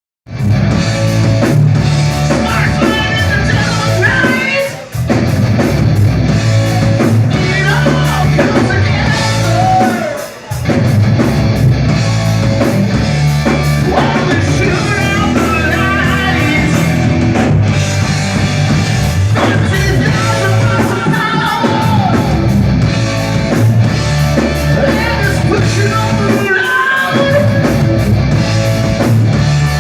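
Live heavy rock band playing loud: electric guitar and drum kit with a singer, amplified. The sound briefly dips twice, about five and ten seconds in.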